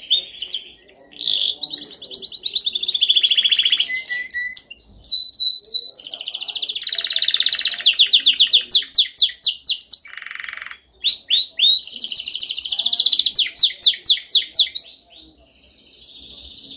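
Domestic canary singing loudly: fast trills and rolling runs of rapidly repeated notes, in phrases broken by short pauses.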